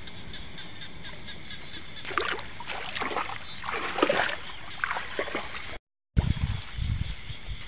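Shallow water splashing and sloshing in a run of short, irregular splashes over a few seconds, with hands working in the water at the bank. Near the end the sound cuts out briefly, then low thumps follow.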